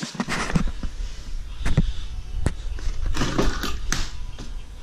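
Plastic headlight assemblies from a Nissan 240SX S14 being picked up and handled: a string of sharp clicks and knocks with some scraping, over a low rumble.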